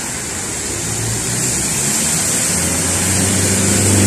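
Cars driving through a flooded street, their tyres swishing and splashing through deep standing water over a constant rushing hiss. A vehicle's low engine hum comes in about a second in and grows louder as it approaches.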